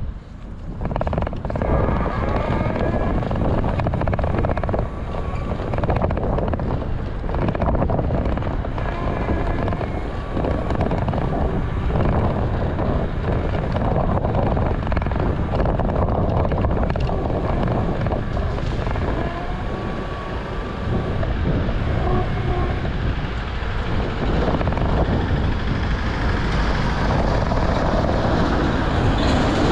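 Wind buffeting a handlebar-mounted action camera on a moving bicycle, with the rumble of the tyres on the road and knocks and rattles from bumps shaking the mount. The noise jumps up about a second in and stays loud.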